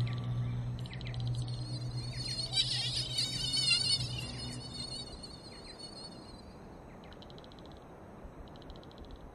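Insect chirping in short, evenly repeated trills, over a low steady hum that fades out about halfway through. About three seconds in there is a louder burst of dense, warbling high chirps.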